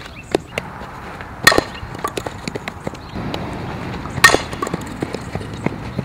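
A fastpitch softball bat striking a softball twice, sharp cracks about a second and a half in and again near four seconds in, the second the loudest, with lighter knocks and ticks between.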